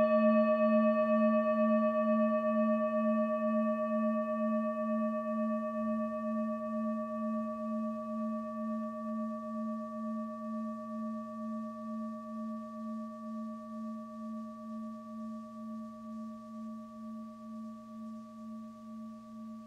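A struck bell ringing on after its strike and slowly dying away, with a low hum and a slow wavering pulse a little over once a second.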